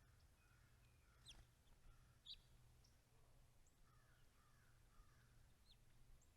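Faint wild birds: a few short, high chirps, one sharper than the rest about two seconds in, over softer distant calls and a low steady hum.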